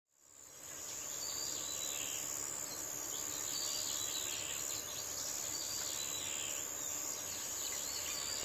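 Insects calling in a steady, high-pitched drone, with faint bird chirps scattered through it. It fades in just after the start.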